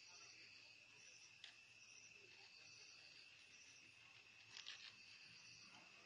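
Faint insect chirping, crickets: a steady high trill with shorter, higher chirps repeating over it. A few faint clicks come about one and a half seconds in and again near the five-second mark.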